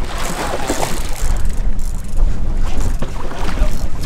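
Wind buffeting the microphone aboard a boat at sea, a loud, unsteady low rumble, with water splashing during about the first second as a hooked wahoo thrashes at the surface.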